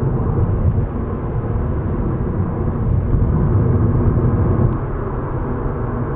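Steady low road and engine drone inside a Subaru WRX's cabin at freeway speed, a little louder around the middle. The engine and exhaust note barely stands out from the rumble.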